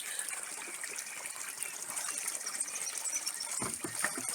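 Fresh water running steadily at a water point, a constant hissing gush, with a few faint knocks near the end.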